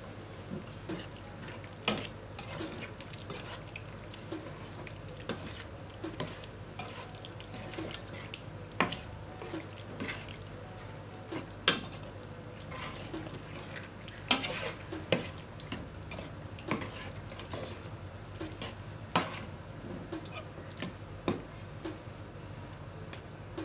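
A metal spoon stirring pork in an aluminium pot, scraping and clinking against the pot's side in irregular knocks. The loudest strikes come about halfway through.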